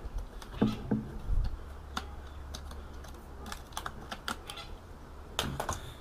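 RAM sticks being unclipped and pulled from an Apple eMac motherboard's memory slots: a scattered run of sharp plastic clicks, bunched more thickly in the second half.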